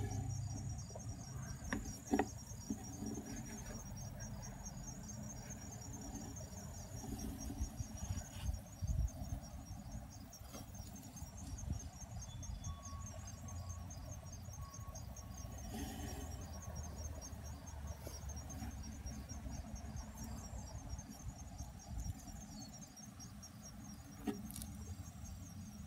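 Crickets chirping: a steady, high, rapidly pulsed trill, over a low rumble with a few soft knocks on the microphone.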